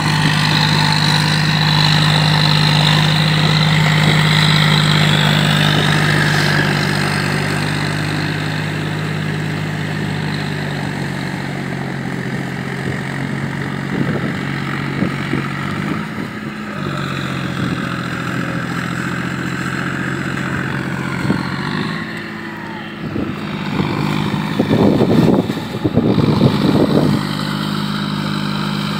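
Tractor's diesel engine running steadily under load as the tractor, on cage wheels, pulls a puddling harrow through a flooded paddy field. It is louder at first and fades as the tractor moves off. Rough, louder bursts of noise come near the end.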